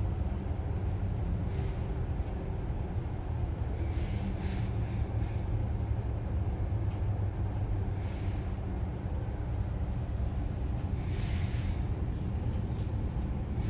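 Regional electric train running along the line: a steady low rumble of wheels on rails, with several brief hissing swishes over it.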